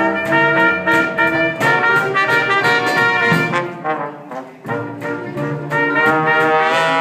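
Trombone and trumpet of a Dixieland jazz band playing together in long held notes. The music drops away for a moment a little past halfway and then picks up again.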